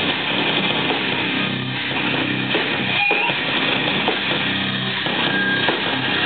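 Metal band playing live: electric guitars, bass guitar and drum kit in a loud, dense instrumental passage.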